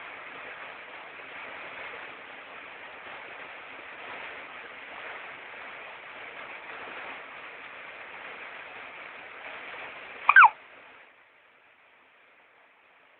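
A baby hiccups once near the end, a short, sharp squeak over a steady background hiss that falls away just after it.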